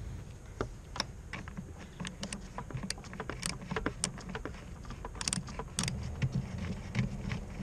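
Irregular metallic clicks and clinks of a hand tool working a bolt on the wiring harness cover of a Mercedes-Benz C180 engine, as the bolt is loosened and turned out, over a steady low hum.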